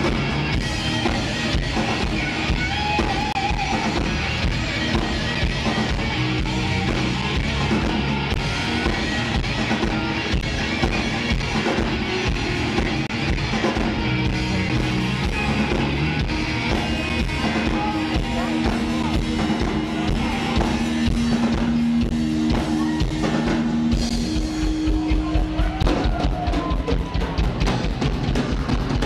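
A rock band playing live: electric guitar and bass holding long notes over a full drum kit. Near the end the drums take over, with rapid, evenly spaced kick-drum strokes.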